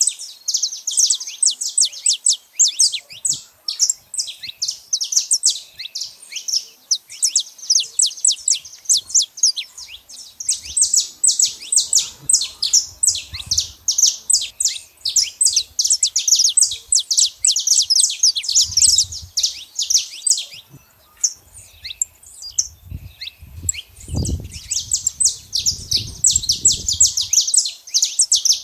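Saffron finches singing: a fast, almost unbroken stream of short, high, downward-sweeping chirps, with a brief lull about two-thirds of the way through. Low rumbles come and go underneath in the second half.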